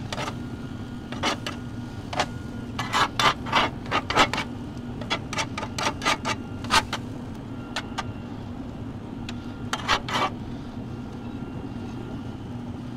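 Metal spatula scraping and pushing across a hot griddle skillet, working scrambled eggs into shredded beef and onions. The short scrapes come in irregular clusters, mostly in the first seven seconds with a few more near ten seconds, over a steady low hum.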